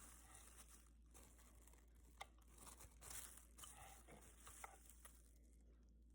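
Faint rustling and crinkling, with a few light clicks.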